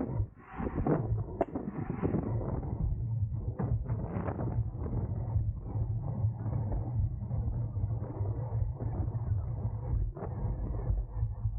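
Wind buffeting and road rumble on a racing bicycle's onboard camera microphone while riding at speed in a pack, with a few sharp clicks and knocks in the first few seconds.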